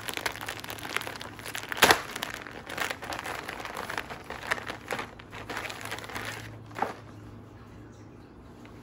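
Plastic packaging crinkling and crackling as it is handled, with a sharper crackle about two seconds in. The crackling dies down about seven seconds in.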